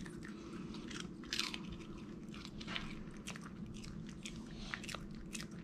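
Small dog crunching and chewing a crispy freeze-dried liver treat: a run of irregular crisp crunches, the loudest about a second and a half in.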